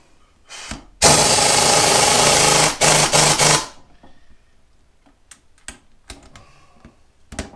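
Impact wrench running for about two seconds, then three short blips, tightening the bolts on a new fan clutch hub. After it come a few light clicks and knocks of tools, and the wrench starts again at the very end.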